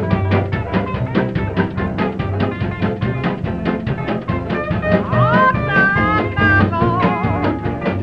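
Music with a quick steady beat; a melody with sliding, bending notes comes in about five seconds in.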